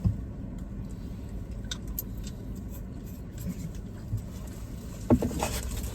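Steady low rumble inside a car's cabin, with a few light clicks and a sharp knock about five seconds in.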